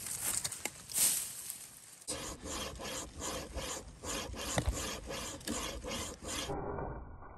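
Footsteps crunching through dry fallen leaves, then from about two seconds in a wire saw strung in a wooden bow-saw frame rasping back and forth through a branch, about three strokes a second. The sawing cuts off suddenly near the end.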